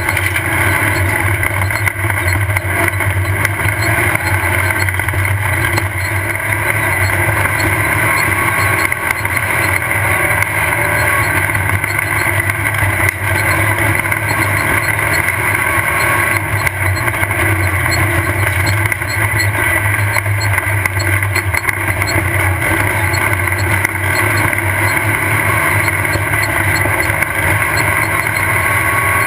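Off-road race buggy's engine running hard and steadily, a constant loud drone with no let-up.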